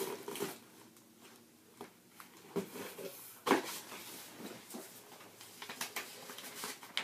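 Handling noise from unpacking a cardboard box: the flaps and contents are shifted about, with scattered rustles and a few short knocks, the loudest about three and a half seconds in. Printed paper sheets rustle as they are pulled out and handled.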